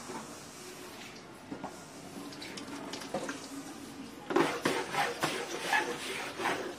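Plastic bucket and scrubbing brush knocking and clattering on a wet tiled floor: a few light knocks, then a quick run of louder knocks from about four seconds in.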